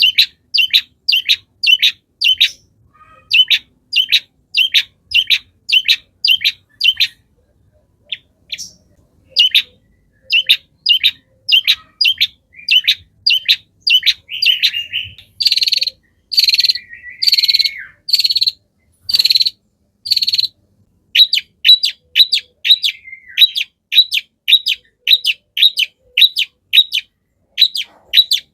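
Long-tailed shrike (cendet) singing a fast series of short, sharp, high notes, about two to three a second. Around the middle it breaks into about five longer, harsh calls before the quick notes resume.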